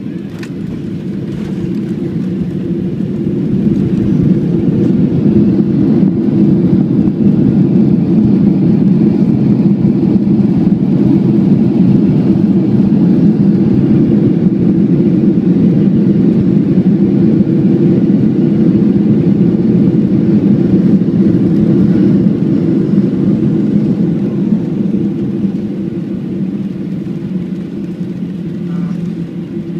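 Inside the cabin of a Boeing 737-800, the CFM56 jet engines swell into a loud, steady rumble about three seconds in. They hold it for some twenty seconds and ease off near the end, as with reverse thrust on the landing rollout.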